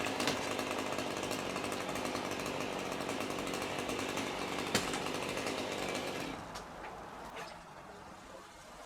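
Chainsaw running steadily at high revs, then dying away a little after six seconds in.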